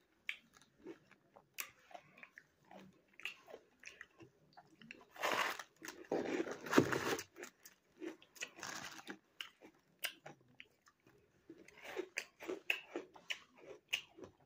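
Biting and chewing frozen ice mixed with cornstarch: a run of short, crisp crunches, with a louder, denser stretch of crunching about five to seven seconds in.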